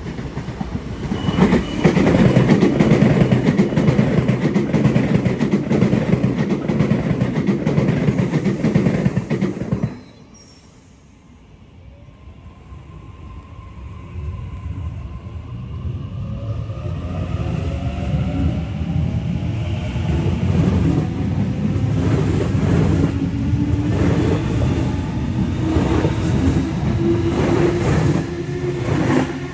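Sydney Trains electric suburban train running past the platform with a loud, steady rumble of wheels on rail that cuts off abruptly about ten seconds in. Then a train pulls away alongside the platform, its electric traction motors whining in several rising tones as it picks up speed, the rumble building again.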